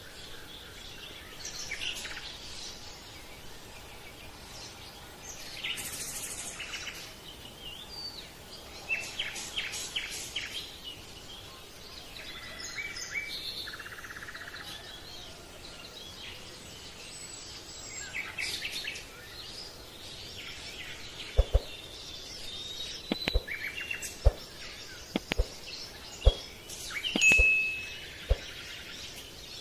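Birds chirping and trilling over a soft outdoor hiss. In the second half come several sharp clicks.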